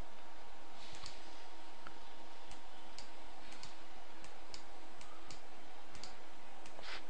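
Computer mouse clicking now and then, roughly once every half second to second, over a steady hiss and faint hum.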